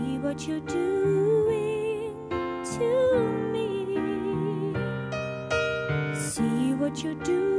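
Music: a slow song with keyboard chords under a wavering melody line.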